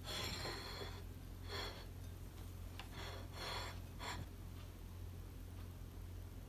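Ceramic plate scraped and slid across a wooden board in several short scrapes over the first few seconds, the last one a brief sharp scrape.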